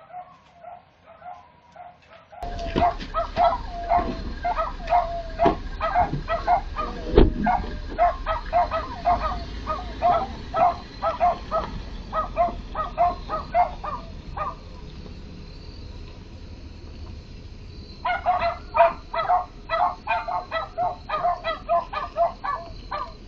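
A dog barking over and over, two or three quick barks a second. It stops for a few seconds and then starts again. Under the barking a pickup truck's engine runs low, and there is a single knock about seven seconds in.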